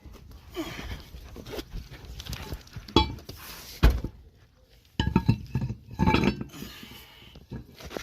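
Metal tire-change tools clinking and clanking as they are handled. There is a ringing clank about three seconds in and a dull thud just after it, then a quick run of clanks a second later.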